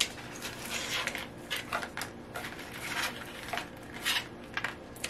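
Rustling and a series of small irregular clicks and knocks as the contents of a diamond painting toolkit are taken out and handled: small plastic tools and packaging.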